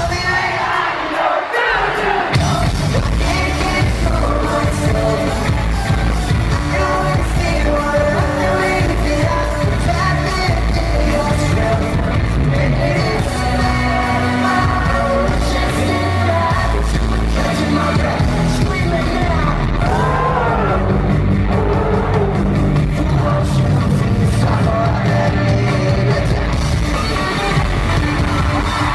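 Live pop-rock band playing in an arena, heard from the audience: electric guitars, drums and a sung lead vocal. The bass and drums drop away for about two seconds at the start, then the full band comes back in.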